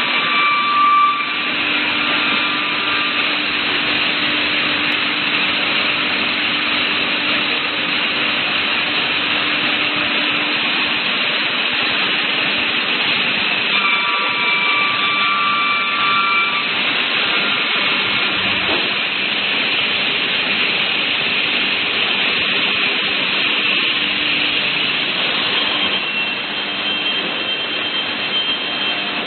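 CNC wood panel saw line running: a steady, loud machine hiss with high whining tones that come and go, a few seconds in, around the middle and near the end.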